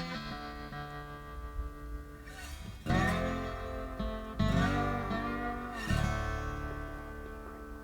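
Background music: guitar chords strummed about three, four and a half and six seconds in, each left ringing and fading.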